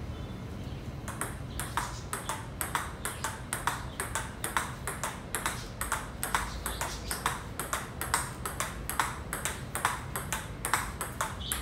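Table tennis ball in a forehand rally, bat strikes and table bounces following each other as sharp clicks in a steady rhythm of about four a second, starting about a second in.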